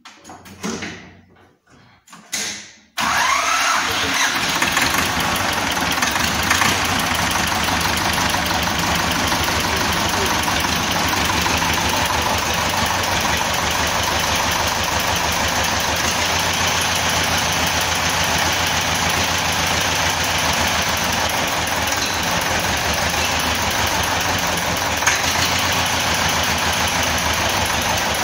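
T-25 tractor's two-cylinder air-cooled diesel engine comes in abruptly about three seconds in and then runs steadily at idle, its fuel injection timing just retarded to cure overheating.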